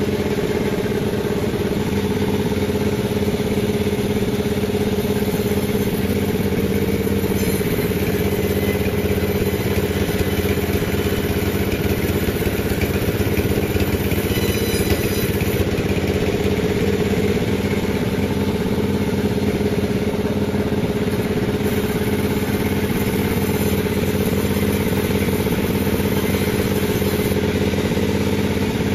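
A Panda36 sawmill's engine running at a steady pitch and level, with no break or change.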